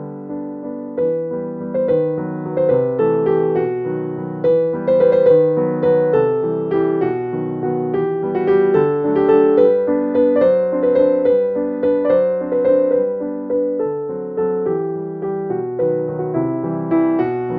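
Background piano music, a steady run of gentle notes.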